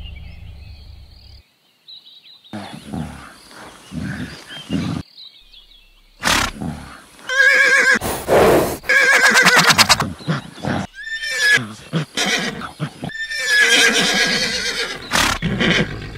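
A horse neighing and whinnying several times in long, shaky calls, with short sharp knocks in between; the loudest calls come about halfway through and again near the end.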